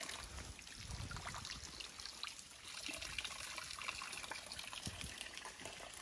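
Water trickling: a faint, steady hiss of running water with small splashes through it.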